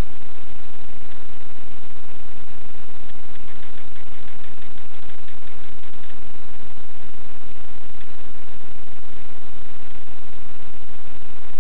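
Loud, steady hiss of electronic static with a faint buzz running through it, with no distinct events.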